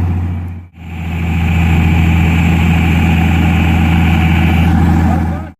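Excavator's diesel engine running steadily with a deep, even hum. The sound fades out briefly just under a second in and comes back.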